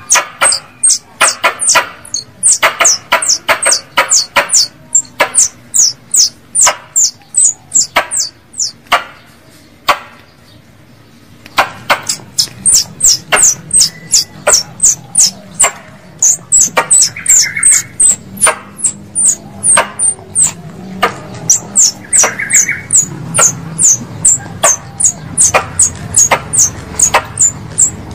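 Plantain squirrel (tupai kelapa) chattering call used as a hunting lure: a long run of sharp, high chips, each sweeping down in pitch, at about two to three a second, with a short break near the middle before it picks up again.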